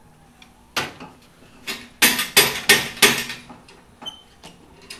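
Hammer striking metal: two separate knocks, then a quick run of about five loud blows, tapping for clearance while a Porsche 917 engine is worked out of its tube-frame chassis.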